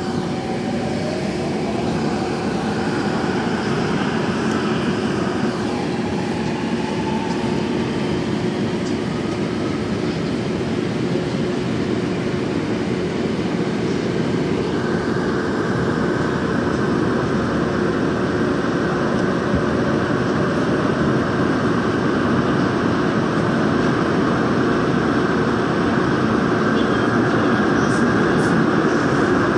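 Daejeon Metro Line 1 subway train heard from inside the car as it pulls away and runs through a tunnel. A rising motor whine over the first few seconds and again a little later marks the acceleration. After that comes a steady rumble and rush of wheels and tunnel air that slowly grows louder and turns brighter about halfway through.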